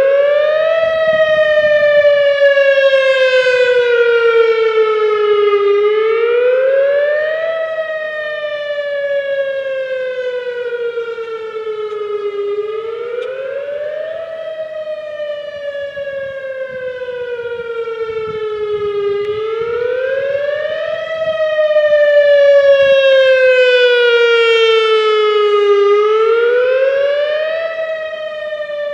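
Whelen WPS-2000R electronic outdoor warning siren sounding a wail. Each cycle is a quick rise in pitch lasting about a second and then a slow fall lasting about five seconds, repeating four times. The loudness swells and fades as the siren's rotating speaker head turns toward and away from the listener.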